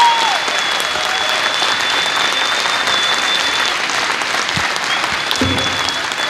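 Audience applauding, with a high, steady whistle held over the clapping for about four seconds and sounding again near the end.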